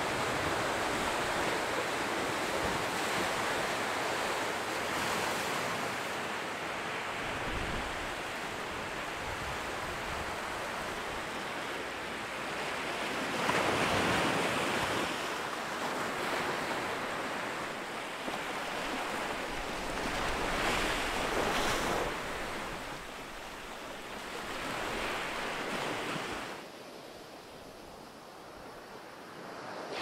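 Ocean surf: waves breaking and washing up the shore in repeated swells. There is a quieter lull near the end before the next wave comes in.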